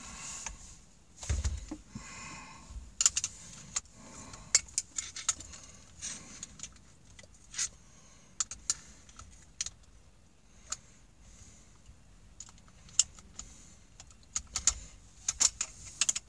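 Irregular small metallic clicks and light rattling from a screwdriver and a cordless drill being handled, with a few quick clusters of clicks about three seconds in and again near the end.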